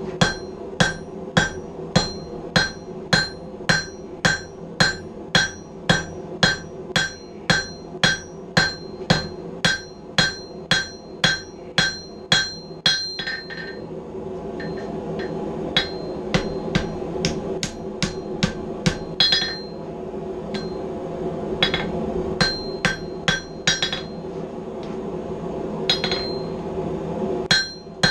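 Blacksmith's hand hammer striking hot steel on an anvil, each blow ringing. For about the first half the blows come evenly at about two a second. They stop for a couple of seconds, then come back in sparser groups over a steady low rushing noise, picking up again near the end.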